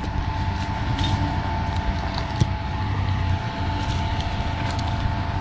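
Off-road 4x4 vehicle engine running steadily at low speed, with a thin steady whine above it. Scattered light ticks are heard, with one sharper knock about two and a half seconds in.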